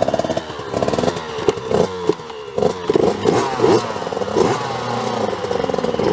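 Several small two-stroke motocross bikes running at once, their throttles blipped again and again so that overlapping engine pitches rise and fall.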